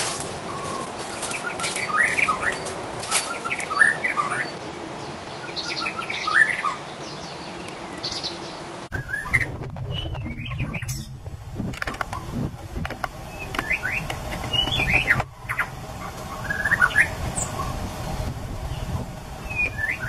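White-rumped shama singing: a run of varied, clear whistled phrases with quick rising and falling notes, coming every second or two. The background changes abruptly about nine seconds in.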